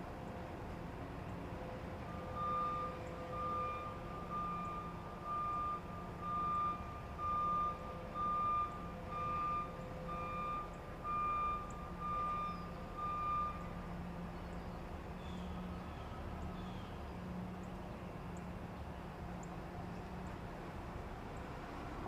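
Truck's reversing alarm beeping about once a second, roughly a dozen beeps, over the steady hum of its idling engine. The beeping stops about two-thirds of the way through while the engine runs on.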